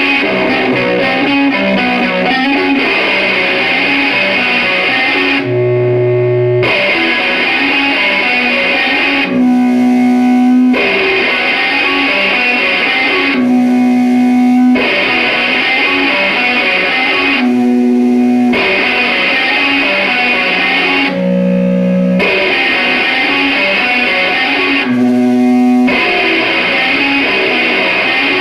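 Electra electric guitar playing a repeating riff. Each pass of about four seconds is busy strummed playing that ends on a chord held for about a second.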